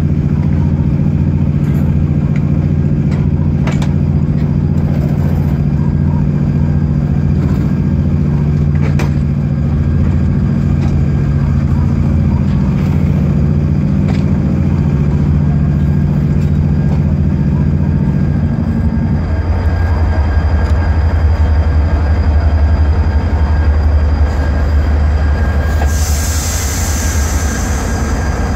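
Diesel locomotive engine running steadily as the locomotive rolls slowly over the tracks, with a couple of sharp clicks. About two-thirds through, the engine note changes to a deeper rumble. Near the end there is a short high hiss.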